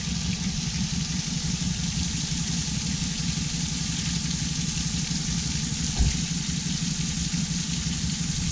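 Boat engine running at a steady speed. There is one short thump about six seconds in.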